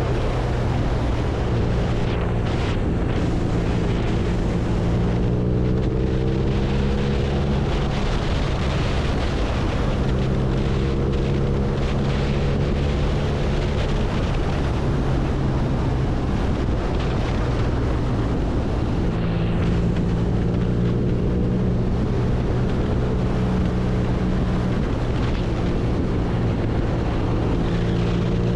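BMW R nineT's air-cooled boxer twin running under way, its engine note holding fairly steady with slight rises in pitch and brief breaks, under heavy wind noise on the microphone.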